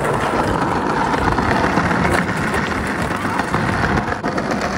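Skateboard wheels rolling over stone paving tiles, a steady rumble with a few sharp clacks from the board.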